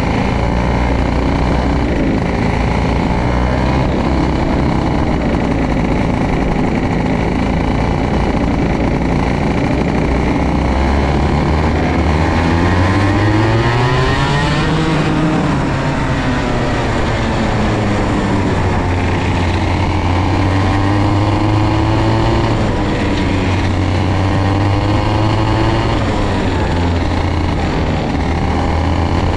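Vortex KA100 100cc two-stroke kart engine running on track, its revs climbing and dropping several times as it accelerates and lifts.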